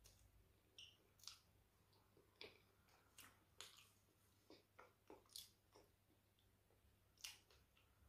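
Faint, close-up wet mouth sounds of a person eating boiled yam with owo soup: scattered lip smacks and soft chewing clicks, about a dozen, the sharpest one near the end.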